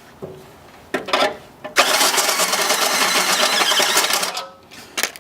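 A power drill enlarging a bolt hole in sheet metal. It gives a couple of short bursts about a second in, then drills steadily for about two and a half seconds with a grinding noise, and stops.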